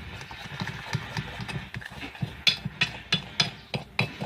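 A utensil stirring a thick flour and dish-soap mixture in a bowl, knocking against the bowl's side in quick repeated clacks, sharper and louder in the second half.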